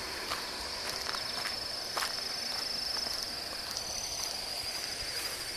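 A steady, high-pitched trill of insects chirring in the vegetation, with a few light footsteps on grass and dirt.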